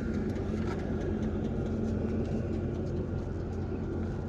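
Vevor 5 kW diesel air heater running with a steady hum, still in its warm-up phase at high output before it settles down.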